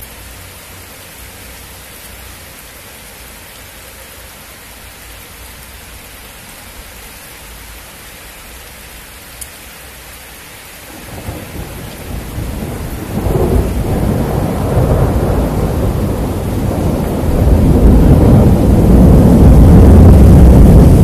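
Thunder from a nearby lightning strike over a steady hiss of rain. The deep rolling rumble starts about halfway through, swells in waves and is loudest near the end.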